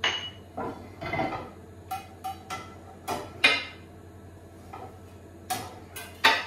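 Metal pans and cooking utensils clattering on a gas hob: a dozen or so irregular knocks and clinks, some ringing briefly.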